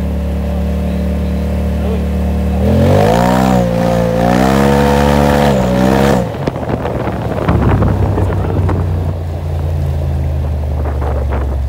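Turbocharged twin-cylinder engine of a Polaris RZR XP4 Turbo, breathing through an aftermarket RJWC APX/AL exhaust on a freshly flashed Stage 3 tune. It idles, is revved once about three seconds in and held high for about three seconds with a wavering pitch, then drops sharply back to idle.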